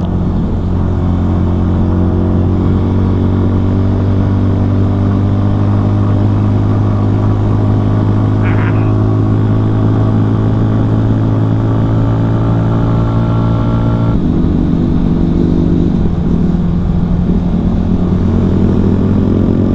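A CFMoto Papio XO-1 mini motorcycle's single-cylinder engine running steadily under way. About fourteen seconds in the engine note drops as the throttle is eased, and it rises again near the end.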